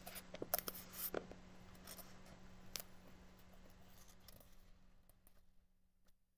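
Faint rustling and a few soft clicks of paper as a hand brushes over and grips the pages of a paperback book, dying away near the end. A low steady hum sits underneath.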